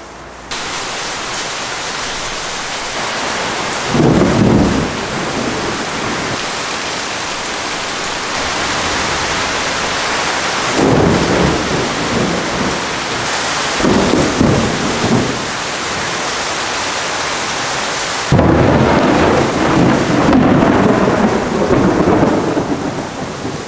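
Thunderstorm: steady rain with rolls of thunder, one about four seconds in, more around eleven to fifteen seconds, and a longer, louder roll that starts suddenly at about eighteen seconds.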